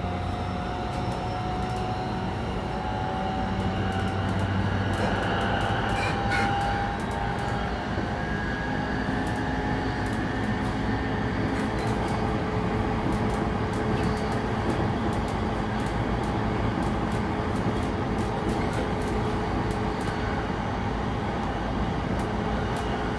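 E233 series electric train running between stations, heard from inside the motor car: a steady rumble of wheels on rail under the whine of the VVVF inverter and traction motors, whose tones shift in pitch now and then.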